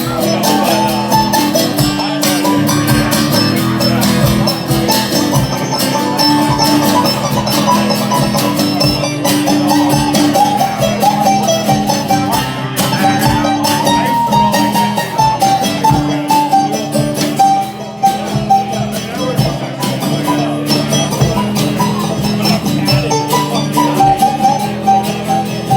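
Live rock band playing an instrumental passage with no singing: a guitar melody over a steady beat.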